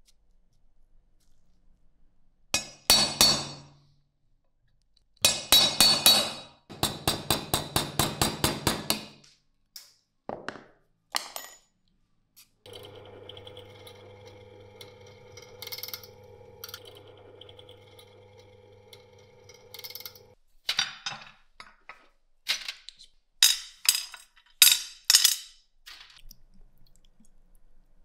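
Sharp metal clinks and a run of quick strokes, about four a second. In the middle a bench drill press motor runs with a steady hum for about eight seconds, then stops. The clinks return near the end, several in a row.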